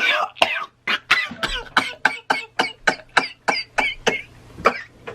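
A person making a rapid series of short, sharp, cough-like vocal noises, about four a second.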